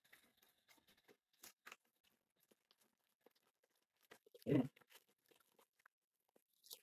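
Quiet eating sounds of ice cream: scattered faint clicks and small crunches, with one louder dull knock about four and a half seconds in.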